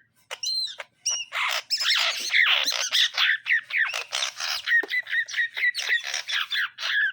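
Cucak ijo (greater green leafbird) singing fast and almost without pause, harsh squawking notes mixed with quick whistled notes, starting about a second in after a short silence.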